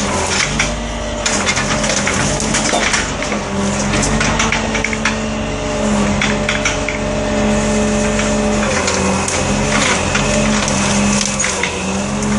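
Engine and hydraulics of a knuckleboom log loader running under load, the engine note rising and falling as the grapple boom is worked. Scattered sharp cracks and knocks come from branches and logs caught in the grapple.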